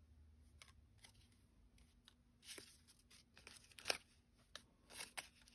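Faint rustling and ticking of small die-cut paper tags being shuffled and handled by fingers, with a few short sharp paper snaps spread through the second half.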